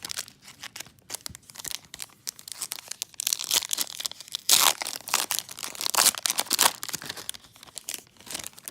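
Foil trading-card pack wrapper being torn open and crinkled by hand. The crackling is loudest through the middle stretch and stops just before the end.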